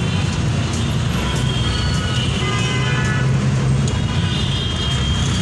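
Dense city road traffic: a steady low engine rumble, with vehicle horns tooting a few times in the middle.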